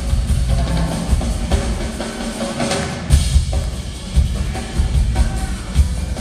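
Two rock drum kits playing together live, with kick drum, snare and cymbals, and a heavy accented hit about three seconds in.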